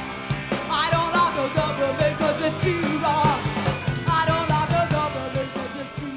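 Live rock band playing, with a singer's voice carrying a wavering melody over a steady drum beat.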